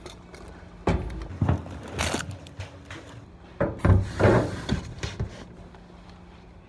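Close handling noise: a clipboard and other objects knocked and bumped near the microphone, with fabric rustling as a white coat is handled. There are a few separate knocks, the loudest about four seconds in.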